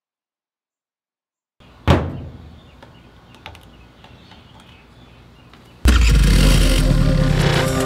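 A single sharp hit that fades away, then a few seconds later a loud motor scooter engine sound cuts in suddenly and runs on.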